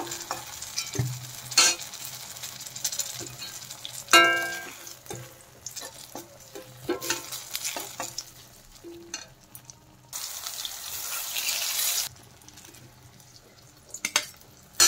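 Aubergine slices sizzling in hot mustard oil in a steel kadai, with a steel spatula scraping and clicking against the pan as they are lifted out. A ringing metal clank about four seconds in is the loudest sound, and the sizzling swells for a couple of seconds about two-thirds of the way through.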